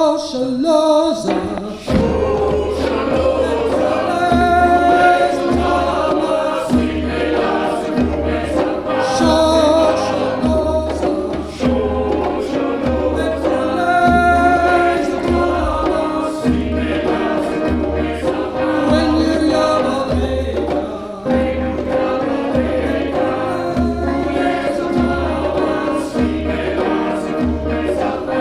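Community choir singing in several parts, with a steady low beat coming in about two seconds in and running under the voices.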